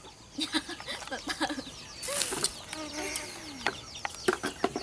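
Chickens clucking, with short high chirps repeating throughout and scattered light clicks.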